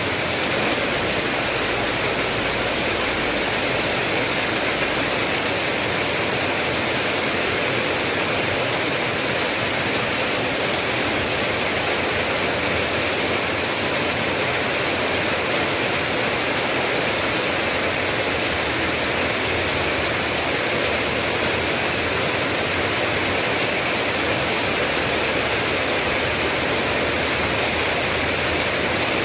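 Steady heavy rain, an even, unbroken hiss with no separate drops or thunder standing out.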